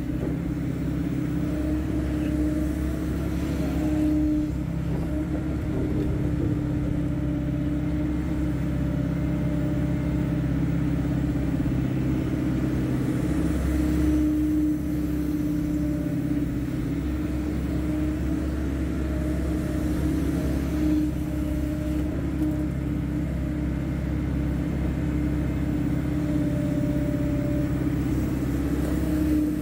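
Hydraulic excavator's diesel engine running steadily under work, a continuous low drone with a strong steady hum.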